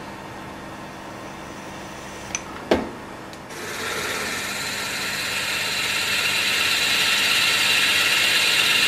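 Milling machine spindle running with a drill in the chuck; a sharp knock comes at about three seconds, and soon after, the drill starts cutting into the cast iron rocker arm, a steady grinding hiss that slowly grows louder.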